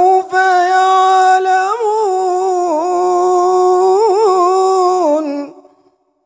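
A man's voice reciting the Quran in a melodic tajweed style, holding one long drawn-out note with several ornamental wavering turns, then stopping about five and a half seconds in.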